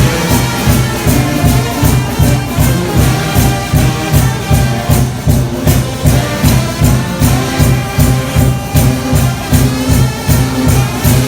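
Brass shout band playing gospel music: a loud ensemble of sustained brass lines over a fast, steady bass beat.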